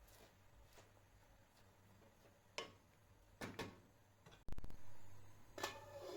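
A few light clicks and knocks, with one louder, deeper thump about four and a half seconds in.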